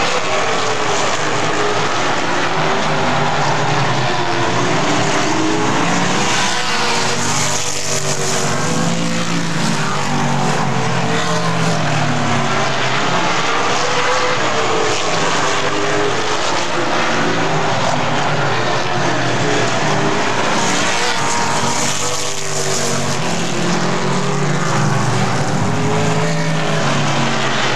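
Super late model stock cars racing on a short oval, several V8 engines running at once, their pitches gliding down and up as they lift for the turns and accelerate out. The sound dips and swells twice, about fourteen seconds apart.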